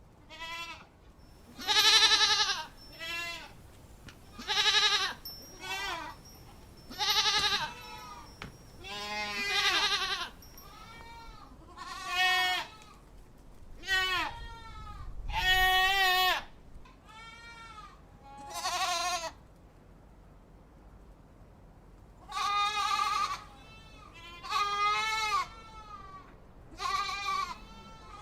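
Goat bleating over and over: a string of quavering bleats, each under a second long, with a short pause about two-thirds of the way through.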